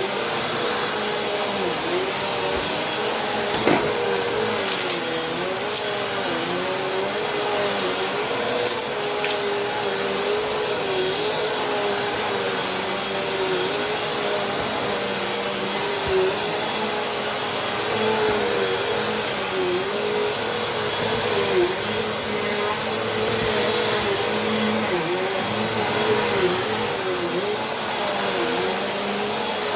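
Vacuum cleaner running steadily with a high whine. Its motor pitch wavers and dips every second or two as the suction load changes, and a few brief clicks and crackles come through.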